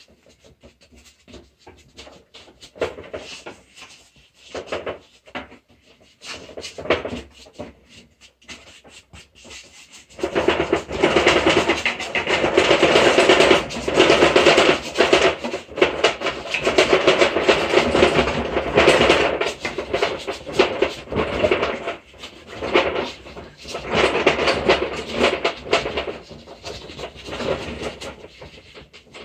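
A paintbrush scrubbing paint onto canvas in rapid, scratchy strokes close to the microphone. It begins as a few scattered scratches and becomes loud and continuous about a third of the way in.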